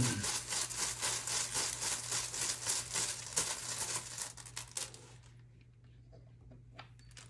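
Rune pieces shaken and rummaged in a cloth bag: a fast, even rustle with clicking. About four and a half seconds in it thins to a few scattered clicks as a rune is picked out.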